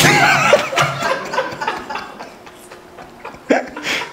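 Small audience laughing, loudest at the start and tapering off over a second or two, with a couple of short laughs again near the end.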